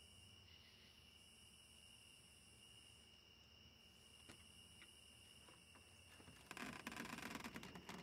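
Faint night ambience of crickets chirring steadily, with a couple of soft clicks and a louder rustling scrape in the last second and a half.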